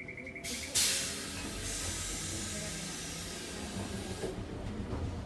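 Hiss of compressed air released from a Randen tram's pneumatic system, starting sharply about a second in, holding steady and stopping after about three and a half seconds. Just before it, a short run of rapid electronic beeps.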